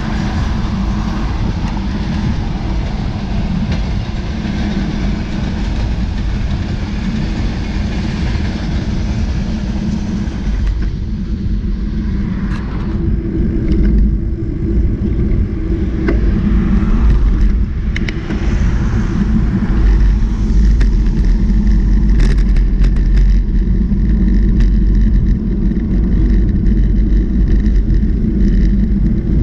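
Steady low rumble and drone of a moving vehicle, with a few short clicks and knocks over it.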